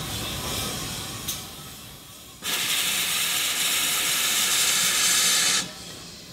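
Steam locomotive passing close by, letting off a loud, even hiss of steam that starts suddenly about two and a half seconds in and cuts off about three seconds later. Before the hiss, the low rumble of the train rolling by with a couple of sharp knocks.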